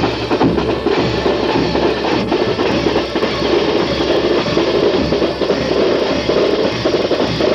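Marching flute band playing, with bass and snare drums beating steadily.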